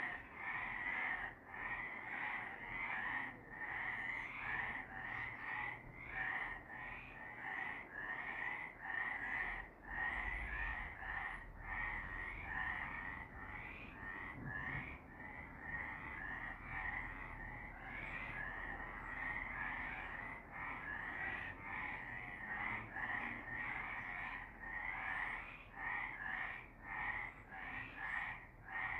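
Several frogs calling together in a dense chorus that never stops, the calls pulsing about once or twice a second.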